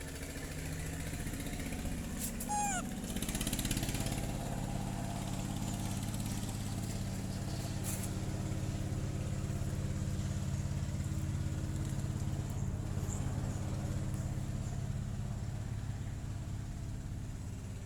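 A motor running steadily with a low, even hum. There is a brief high squeak about two and a half seconds in.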